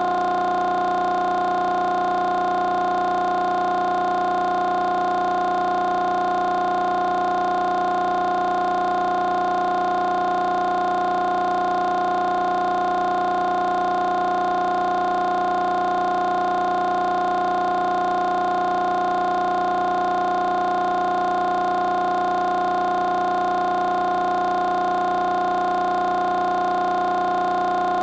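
A single continuous tone, held at one pitch and one loudness throughout, with several overtones above it.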